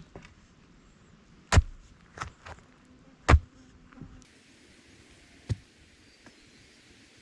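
A few sharp knocks: two loud strikes about two seconds apart, with lighter knocks between them and one more near the end.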